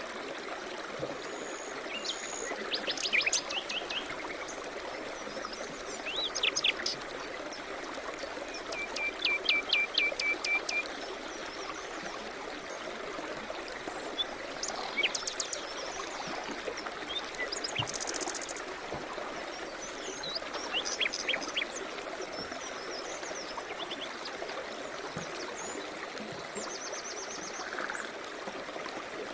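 A stream flowing steadily with songbirds singing over it in short, scattered phrases, including a quick series of repeated chirps about nine to eleven seconds in.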